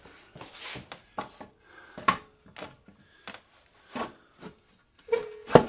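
A long wooden board knocking and scraping against wood as it is handled and wedged into a recliner's frame to lever it apart: a string of separate wooden knocks and clacks, the loudest near the end.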